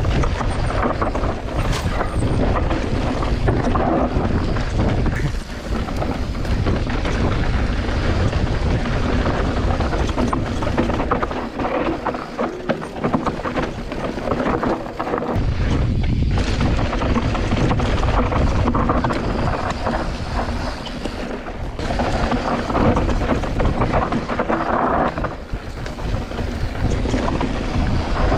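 Wind buffeting the microphone while a Specialized Turbo Levo electric mountain bike descends rough trail, its tyres rolling over loose dirt and rocks and its frame and parts knocking and rattling over the bumps. The wind rumble eases for a few seconds near the middle.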